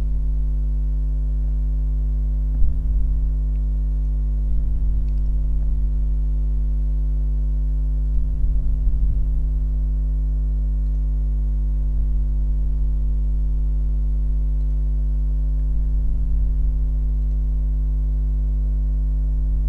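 Steady electrical mains hum, a low buzz with several overtones, with a few soft low bumps, the clearest about three seconds in and a cluster near the middle.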